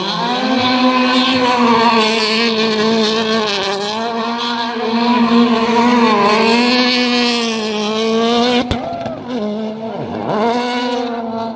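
Hyundai i20 WRC rally car's turbocharged four-cylinder engine revving hard and steadily while it spins donuts, the revs wavering up and down. Near the end a sharp crack, then the revs drop and climb again a few times as the car breaks out of the spin and drives off.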